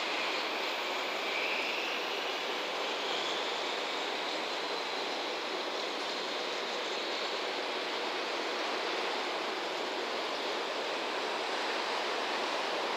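A train of JNR 12-series passenger coaches hauled by a DD51 diesel locomotive rolling away over the tracks: a steady rushing rumble of wheels and engine, with a faint high squeal in the first few seconds.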